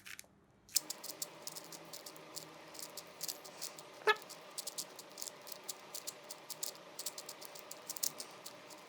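A 4x4 Rubik's cube being turned by hand, giving many quick plastic clicks several times a second over a faint steady hum. A brief wavering tone sounds about four seconds in.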